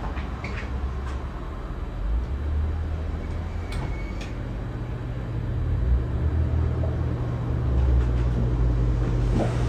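Casablanca Wailea ceiling fan running steadily, its airflow buffeting the microphone with a low rumble over a faint motor hum, with a few light clicks.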